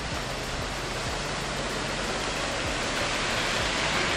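Ornamental fountain jets splashing into their basin: a steady rush of falling water that grows a little louder toward the end.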